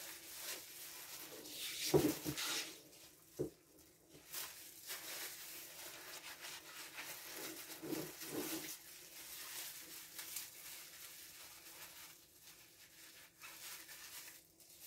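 Plastic-gloved hands handling glass jam jars: faint rustling with a few light knocks of jars being set down and picked up.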